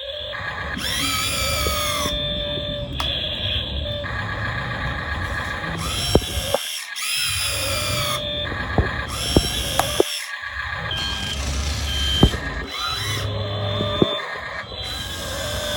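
RC Komatsu PC200-8 model excavator's motors whining as it digs, the pitch rising and falling with each movement, with scattered sharp clicks. The sound breaks off abruptly a few times.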